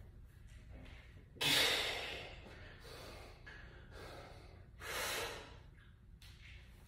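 A man breathing hard under the strain of barbell front squats. There are two loud, forceful exhalations, about a second and a half in and again near five seconds, with quieter breaths between them.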